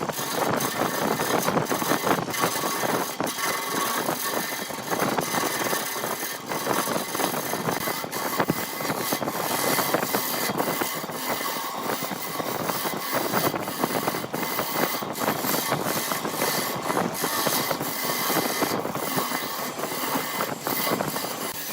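Wood lathe running while a turning tool cuts the spinning wood: a steady, dense scraping noise with frequent ticks and a faint steady whine.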